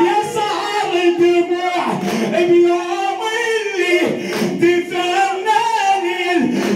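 A male reciter chanting a mournful Arabic latmiya lament, with a group of men beating their chests with open hands in time with the chant.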